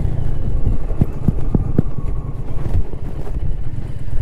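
Indian Challenger's V-twin engine running with a steady low rumble as the motorcycle rides along a rough dirt track. A few short dull knocks come between one and two seconds in.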